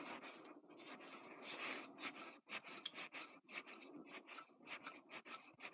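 Faint, irregular clicks and scratching of pliers and small shock parts being handled as a part is unscrewed from the shaft of an RC car shock absorber.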